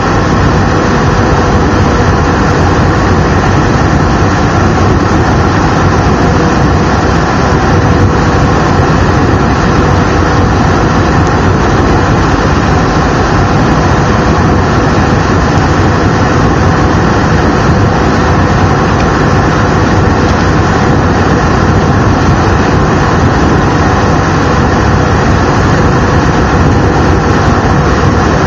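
Steady cabin roar inside an Airbus A319 in its climb: the jet engines and rushing airflow heard through the fuselage beside the wing, with a faint steady hum under the noise.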